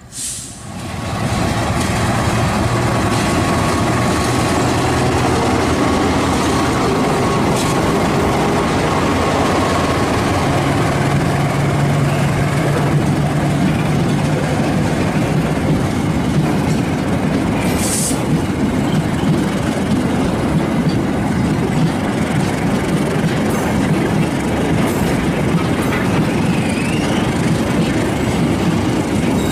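A train hauled by a CC206 diesel-electric locomotive running past at close range. The wheels on the rails make a loud, steady rumble that cuts in abruptly at the start.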